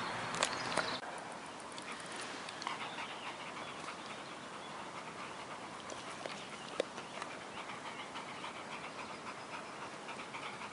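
Labradors panting, out of breath after sprinting.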